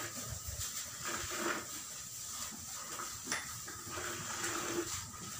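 Hand milking: spurts of cow's milk squirting into a steel bucket, about two a second as the hands alternate on the teats.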